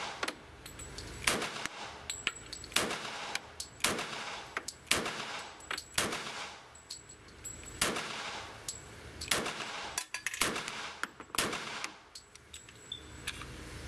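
A .45 ACP Heckler & Koch pistol firing a string of single shots, roughly one to one and a half seconds apart, each with a short echo off the booth walls of an indoor range. Fainter shots are heard between them.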